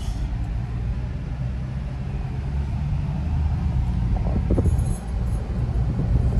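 Car engine and road noise heard from inside the cabin while driving: a steady low rumble that grows gradually louder.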